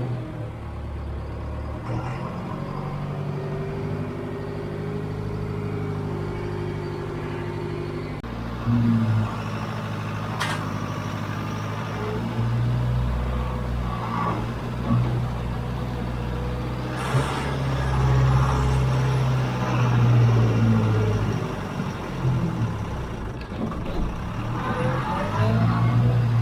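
John Deere 410 backhoe's engine running under varying load as the machine works, its low drone rising and falling in strength. A couple of sharp knocks come from the machine partway through.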